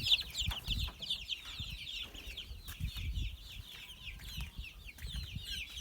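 A group of poultry chicks peeping continuously, many short falling peeps overlapping, with some low rumbling underneath.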